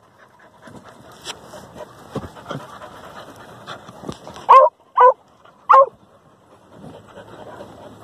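Hunting dog working an armadillo's burrow, giving three short barks in quick succession about halfway through, with panting and scuffling in between.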